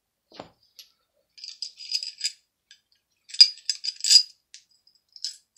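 Light metallic clicks and clinks of a 1911 pistol's steel parts (slide, frame and recoil spring) being handled and set down during disassembly, in two short clusters: one about a second and a half in, one about three and a half seconds in.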